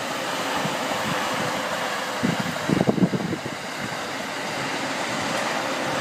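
Electric commuter train approaching along the tracks: a steady rush of wheel and running noise that slowly builds, with a cluster of low rumbles about two to three seconds in.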